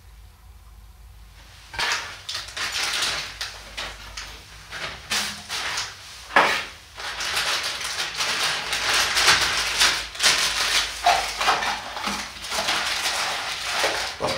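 Hands handling a bicycle handlebar phone holder close to the microphone: rustling and clatter with many small clicks, starting about two seconds in, with a louder knock about six seconds in.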